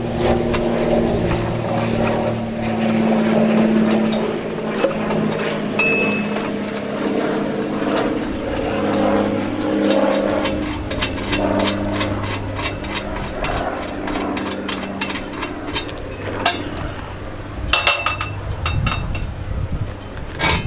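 A steady engine-like drone with a slightly wavering pitch, with sharp metal clicks and clinks on top as a wrench spins the lug nuts off a travel trailer's bumper-mounted spare tire. The clicking comes thickest about eight to twelve seconds in and again near the end.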